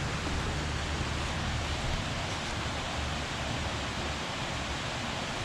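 Steady rushing of falling water from a small waterfall nearby, with low irregular rumbling from wind on the microphone.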